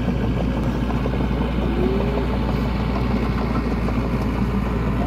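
Small crawler bulldozer's diesel engine running steadily as the machine pushes soil, with a fast, dense clatter from its running gear.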